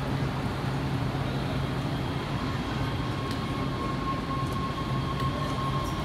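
Underground rail station noise: a steady low rumble and hum, with a thin steady high whine that comes in about two and a half seconds in.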